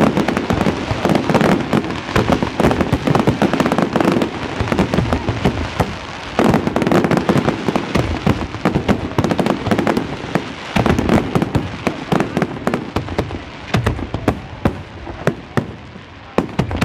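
Aerial fireworks display: a dense barrage of shell bursts, many bangs in quick succession with crackling between them. The barrage thins to more separate bangs in the last few seconds.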